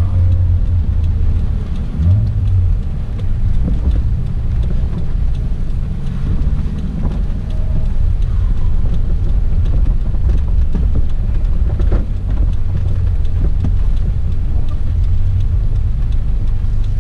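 Toyota Chaser JZX100's turbocharged 1JZ VVT-i straight-six running steadily at low revs, a low drone heard from inside the cabin.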